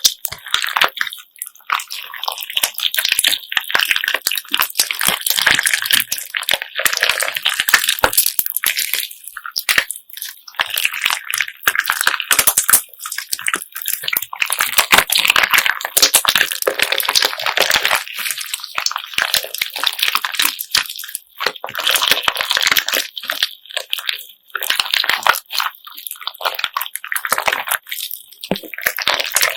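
Slime full of assorted beads being kneaded and squeezed by hand. The beads click and crackle densely in surges with short lulls.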